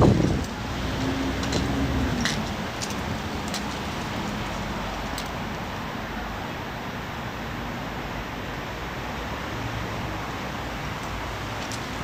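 Steady outdoor city traffic noise, with a passing vehicle's engine note sinking slightly in pitch over the first two seconds.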